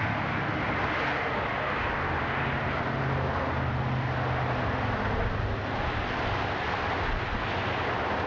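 A car driving along: a steady low engine hum under the rush of road and wind noise.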